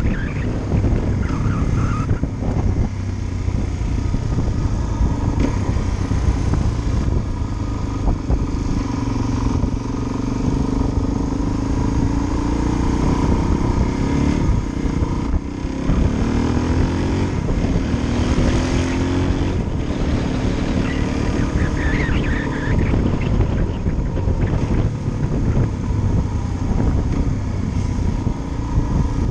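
Suzuki DR-Z400's single-cylinder four-stroke engine running steadily under way on the road, its revs rising and falling several times about halfway through.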